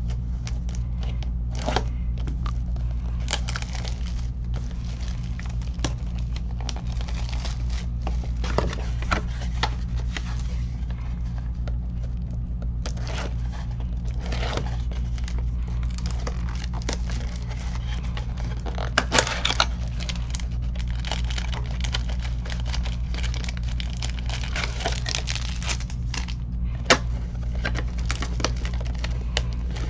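Foil trading-card pack wrappers being torn open and crinkled, with cards being handled, in irregular rustles and sharp crackles over a steady low electrical hum.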